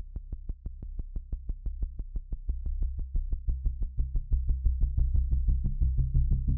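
Electronic music intro: a low synthesizer bass under a steady ticking pulse of about six clicks a second, growing louder.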